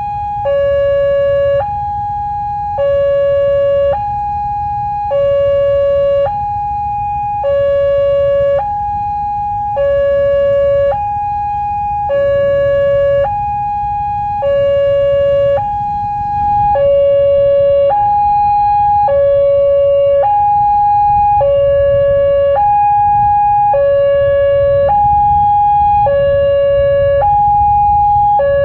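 Railway level-crossing warning alarm sounding for an approaching train: two electronic tones alternate high and low, each held about a second, over a steady low rumble.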